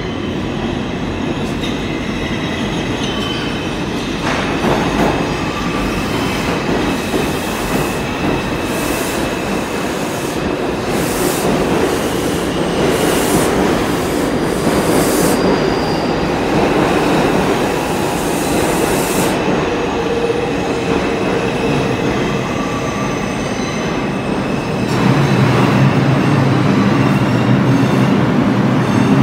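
Bombardier R142 subway train pulling into the station and braking: steady rumble of steel wheels on rail, with squealing in the middle as the cars run past. Near the end, as it slows almost to a stop, a steady low hum takes over.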